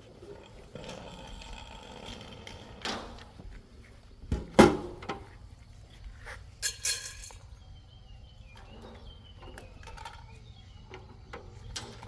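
Scattered knocks and thunks of objects being handled. The loudest is a sharp pair of impacts about four and a half seconds in, followed by a short clatter near seven seconds. Faint bird chirps follow.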